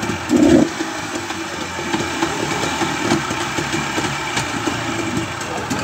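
Yamaha 40 hp two-stroke outboard motor running steadily, smoking heavily because too much oil has been put in the fuel mix. There is a brief louder burst just after the start.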